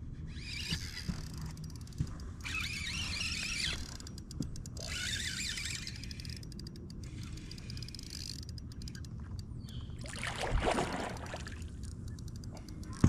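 A hooked bass being fought and landed beside a boat: bursts of splashing at the water's surface, runs of fast reel clicking, and a louder splash-and-thud burst near the end as the fish comes in.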